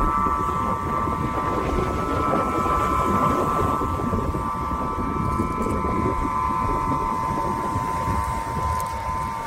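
Aeolian wind harp's strings sounding in the wind over a pipe resonator: a steady cluster of close high tones, with one of the upper tones dropping out about seven seconds in. A low, rough rumble lies beneath.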